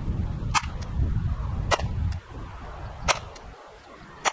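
L86 LSW airsoft electric rifle (AEG) firing four single shots, about one and a quarter seconds apart.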